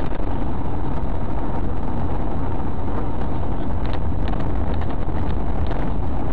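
A car driving along: a steady low engine and road rumble with a hiss of tyre and wind noise.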